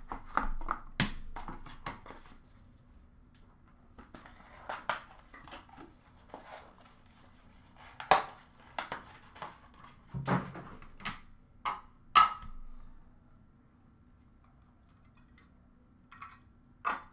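A trading-card box and its packs being opened and handled: scattered taps, clicks and crinkles of cardboard and plastic wrapping, with quiet stretches between.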